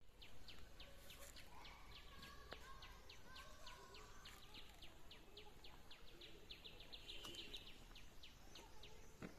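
A bird calling steadily in the trees: a short, high, falling note repeated about four times a second, coming quicker for a moment near the end, with fainter calls of other birds behind it.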